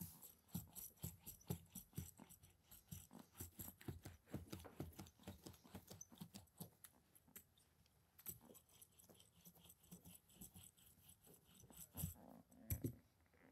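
Small hand seam roller worked back and forth over an uncured EPDM rubber patch, rolling it in: faint rapid ticks, several a second, with a couple of louder knocks near the end.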